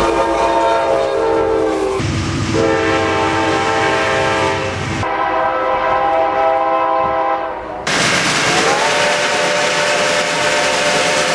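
Locomotive horn blasts spliced one after another: diesel air horns sounding in several chords, the first dropping slightly in pitch as the locomotive passes. About eight seconds in, a steam locomotive whistle takes over, rising in pitch as it opens and then holding.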